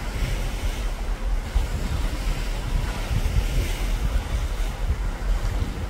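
Wind buffeting the microphone on the deck of a moving cruise ship, a steady uneven low rumble over the rush of the sea below.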